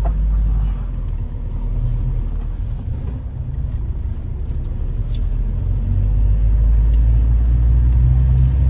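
Cabin noise of a moving route-taxi minibus: a steady low rumble of engine and road, growing a little louder in the second half as it gathers speed, with a few faint clicks.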